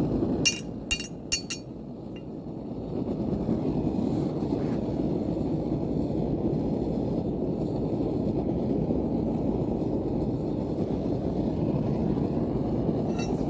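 The forge running with a steady low rush. Three or four sharp metallic clinks of steel on steel come in quick succession about half a second in, and one more comes near the end.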